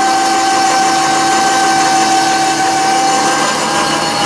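Reese 1-ton 12-volt ball-mount electric winch motor running with a steady whine, under the load of a garden tractor being pulled up the ramps. The whine steps slightly higher about three and a half seconds in.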